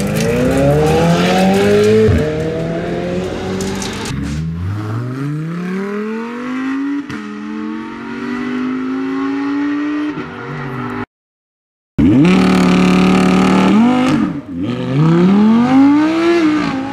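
Supercars accelerating hard away one after another, each engine note climbing through the revs and dropping at the gear changes. First a McLaren Senna's twin-turbo V8, then a Lamborghini Huracán's V10, and, after a brief gap of silence about eleven seconds in, an Audi R8's V10.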